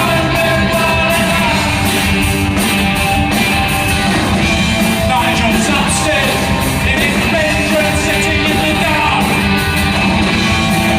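Punk rock band playing live at full volume, a man singing the lead vocal over electric guitar, bass and drums.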